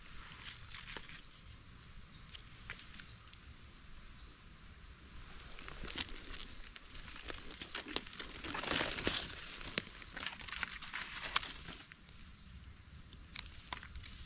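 Rustling of dry leaf litter and undergrowth as mushrooms are picked by hand, loudest in the middle. Behind it a high, short rising chirp repeats about once a second.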